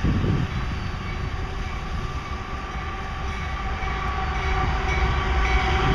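Canadian Pacific diesel locomotive approaching at the head of a freight train: a steady low engine rumble that grows louder toward the end.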